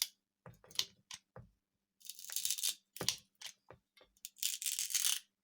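Ratchet pruning shears being squeezed into a dry pine slat: separate sharp clicks and stretches of crackling as the wood gives under the blade, the longest crackle near the end.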